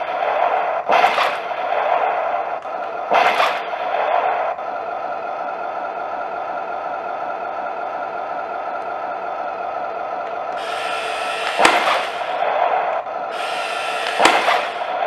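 RC tank's sound unit running a steady engine-idle hum through its small speaker, broken by firing effects: short bursts about a second and three seconds in, then two longer ones near the end, each with a sharp crack as the main gun fires.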